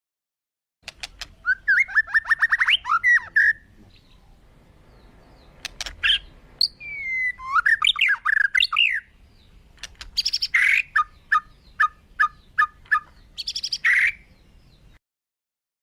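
Birds calling: a fast chattering run of chirps, then whistled notes sliding up and down, then a string of short even notes about two or three a second, broken by a few loud sharp calls.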